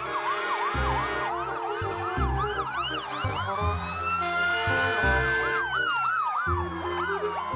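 Emergency vehicle sirens sounding together. A fast yelp rises and falls about three times a second, while a slower wail climbs for a few seconds and then falls away. Background music plays underneath.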